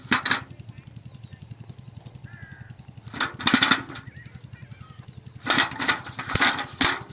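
Freshly netted fish flapping and slapping against the inside of a bucket, in three noisy bursts: right at the start, about three seconds in, and again from about five and a half seconds in.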